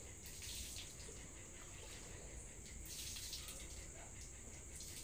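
Faint crowd ambience: distant voices under a steady hiss and low rumble.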